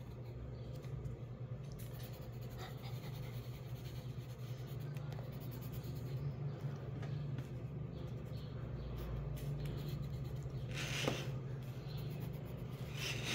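Wooden pencil scratching on paper in many short strokes, over a steady low hum. A brief louder swish comes about eleven seconds in.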